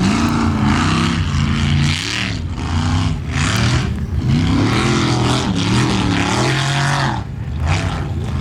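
Formula offroad race truck's engine revving hard on the throttle, its pitch climbing and falling again and again, over a loud rushing noise. The sound drops off briefly about four times as the throttle is lifted.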